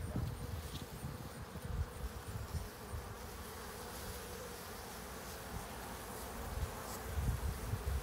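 Honeybees buzzing around an open hive, a steady hum, with low rumbling bumps underneath that are strongest in the first few seconds and again near the end.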